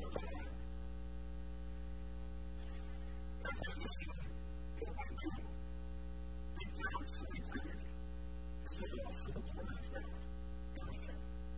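Steady electrical mains hum with an even stack of buzzy overtones. Short snatches of a man's speech come through faintly every second or two.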